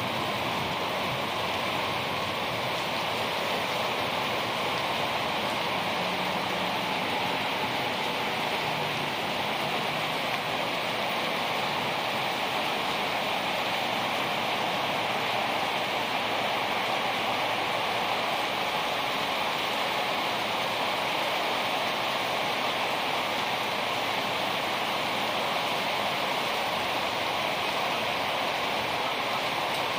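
Heavy thunderstorm rain pouring down, a steady, even hiss.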